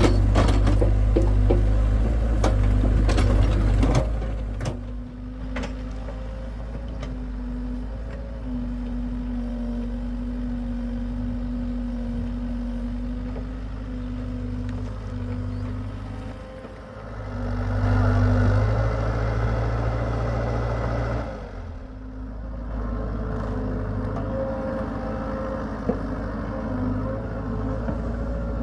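Hitachi excavator's diesel engine running under changing load, working harder for the first four seconds and again for a few seconds from about eighteen seconds in, with a steady droning tone and a few sharp clanks near the start and end.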